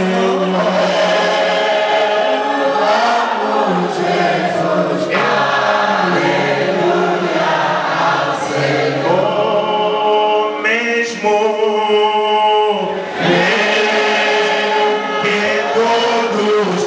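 Congregation singing a worship song together: many voices at once, continuous and loud.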